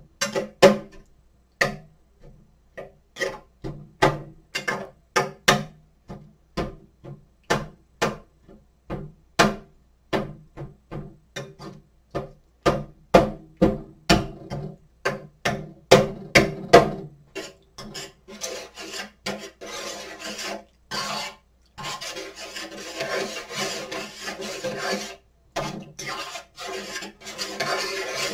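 Kitchen food preparation: a run of quick, irregular wooden knocks, a few per second, like a knife chopping on a cutting board. After about 18 seconds it changes to a continuous rasping scrape.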